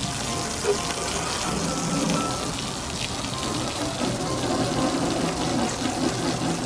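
Water from a garden hose spray nozzle jetting steadily against a car's side panels and window, a continuous hiss and patter, with background music underneath.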